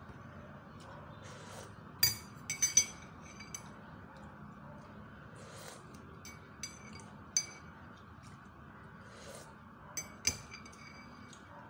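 Metal spoon clinking on tableware during a meal: sharp, ringing taps, with a cluster of several about two seconds in, single clinks later, and two more near the end.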